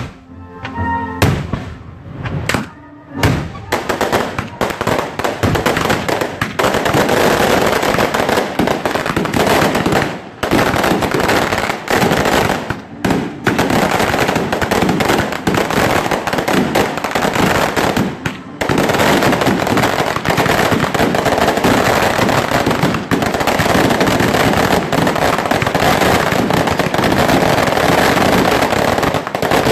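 Fireworks going off in a barrage. A few separate bangs come in the first three seconds, then from about four seconds in a dense, continuous crackle of rapid explosions, broken only by a few brief gaps.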